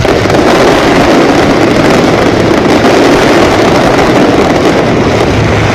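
Dense fireworks barrage heard as a loud, continuous roar, the blasts and crackle running together so that no single bang stands out.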